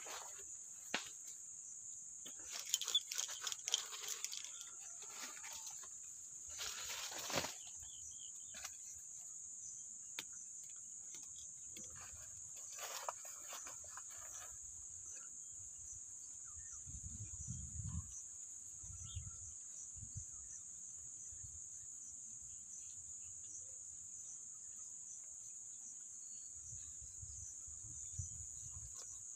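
Insects buzzing in a steady high-pitched drone, with rustling of dry banana leaves and handling noise over the first several seconds and again briefly a little later, and a few low bumps near the middle and the end.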